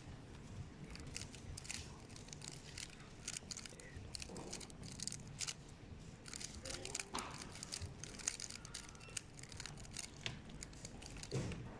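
A plastic 3x3 speed cube being turned by hand: a rapid, irregular run of clicking layer turns that comes in quick bursts with short pauses between them.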